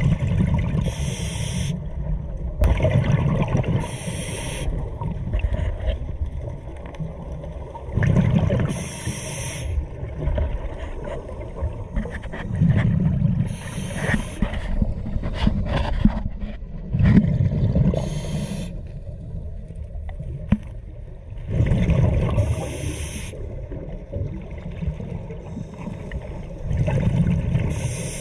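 Scuba diver breathing through a regulator underwater: a rush of exhaled bubbles about every four to five seconds, seven times, with gurgling and low rumbling between.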